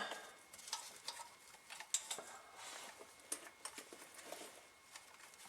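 Faint, scattered light clicks and taps of hand tools working on exhaust manifold bolts.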